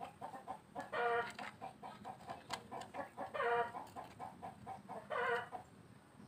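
Chickens clucking, with three short drawn-out calls about two seconds apart and quick clucks between them.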